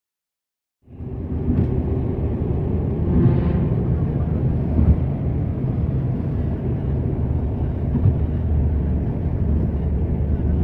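Steady low rumble of engine and road noise inside a moving Hyundai car's cabin, coming in about a second in.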